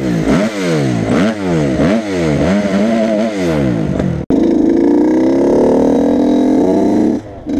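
Motorcycle engine revved up and down several times in quick succession, then, after a sudden cut, a motorcycle engine pulling steadily under acceleration, its pitch slowly rising before dropping off briefly near the end.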